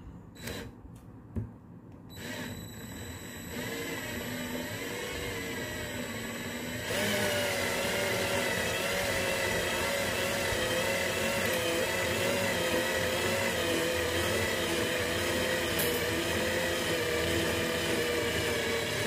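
Cordless battery drill spinning a coil former, winding enamelled copper wire into a passive crossover inductor. The motor whine starts about two seconds in, picks up speed around four seconds and again about seven seconds in, then runs steadily with a slight waver until it stops near the end.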